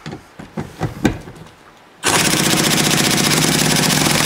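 A few light knocks, then about two seconds in an impact wrench starts hammering fast and steadily, working through a long socket extension to break loose a rusted seat bolt.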